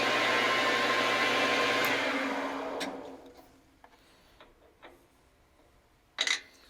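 Metal lathe running steadily, then switched off and spinning down over about a second and a half. A few faint clicks follow, then a short knock near the end.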